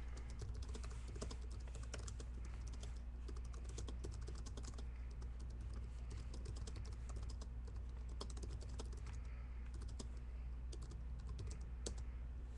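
Rapid, irregular light clicks and taps over a steady low electrical hum.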